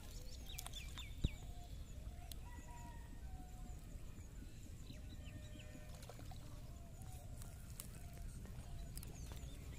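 Riverside ambience: birds chirping in short calls over a steady low rumble, with one sharp tap about a second in.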